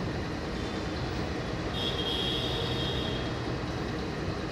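Steady rumble of nearby trains and traffic, with a high-pitched tone sounding for over a second about two seconds in.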